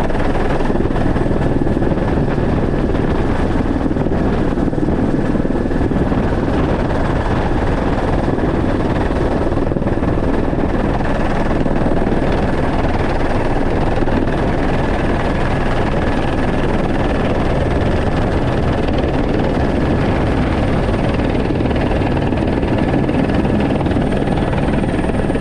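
Helicopter in steady flight, heard from inside its open-door cabin: loud, unbroken rotor and engine noise with a thin, steady high whine over it.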